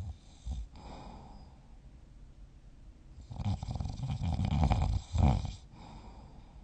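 A person snoring in sleep: a couple of short snorts near the start, then about three seconds in a long, rattling snore that lasts over two seconds and is loudest just before it ends.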